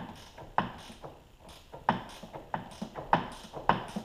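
A 13mm ratcheting box wrench working a strut-top mount nut: a string of sharp metal clicks and taps, irregularly spaced, each with a short ring.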